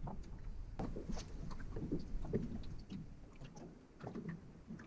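Small waves lapping and slapping against the hull of a small fishing boat, with a few light knocks and clicks about a second in.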